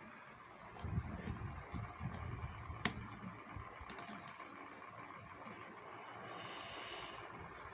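Hands handling objects at close range: low rustling and bumps, a sharp click about three seconds in, a few lighter clicks a second later, and a brief hiss near the end.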